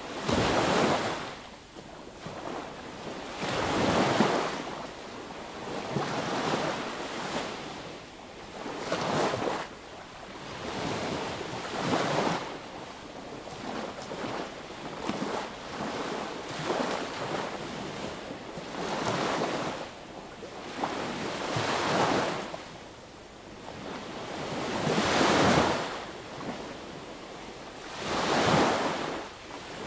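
Sea waves breaking and washing up a beach, each wash swelling and fading in an uneven rhythm about every three to four seconds.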